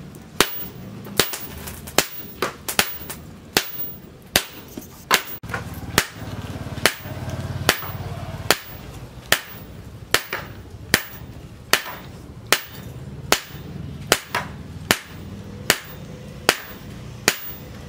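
Hammer blows on a red-hot steel cleaver blade laid on a small anvil: sharp metallic strikes in a steady rhythm, a little more than one a second, with an extra lighter tap about two and a half seconds in.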